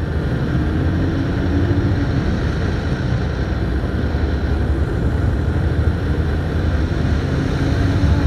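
Ride noise from a moving vehicle: a steady low rumble of engine and road, with wind buffeting the microphone.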